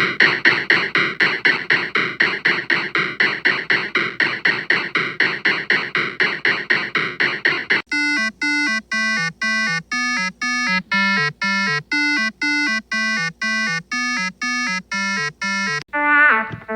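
Electronic synthesizer music. A buzzy synth riff of quick repeated notes, about four a second, plays for about eight seconds. It cuts abruptly to a cleaner synth line of short, evenly spaced notes, and a different musical sound starts near the end.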